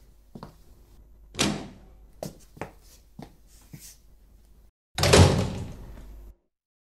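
A wooden interior door being opened, with a series of clicks and knocks from the handle and door. About five seconds in comes a loud door slam that rings out briefly and then cuts off suddenly.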